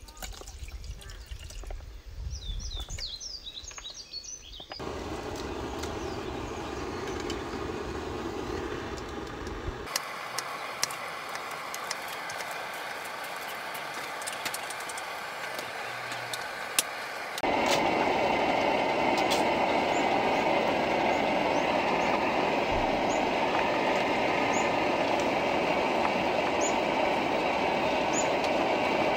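Camp cooking heard in short takes: birds chirping over a low rumble, then a few light knife taps on a wooden cutting board, then, loudest, the steady rushing of a portable canister gas stove burning under a pot of kimchi stew.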